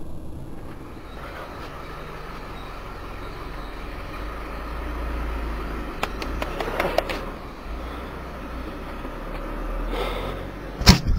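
Juggling balls slapping into the hands in a quick run of sharp smacks about six seconds in, as seven balls are thrown and caught in a flash. A low outdoor rumble runs underneath, and a single loud knock comes near the end.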